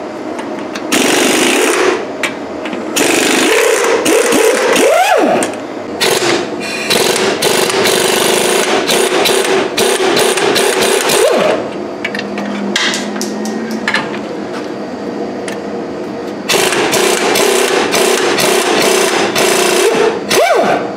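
Impact wrench hammering on the leaf-spring U-bolt nuts in four bursts of one to four seconds each. Several bursts end with the motor's whine winding down.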